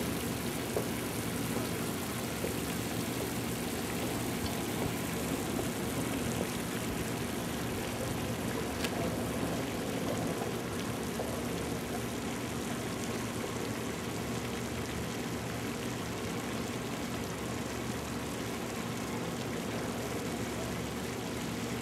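Steady rushing outdoor noise with a low hum beneath it.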